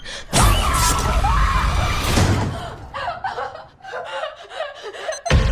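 Film trailer sound: a person screaming and gasping over tense soundtrack effects, with a sharp hit near the end.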